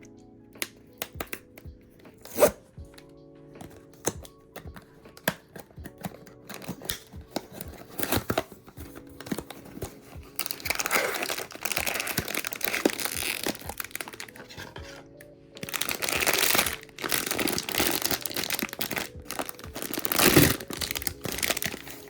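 Blind-box packaging being handled and torn open: scattered small clicks and taps, then two longer stretches of tearing and crinkling. Soft background music plays underneath.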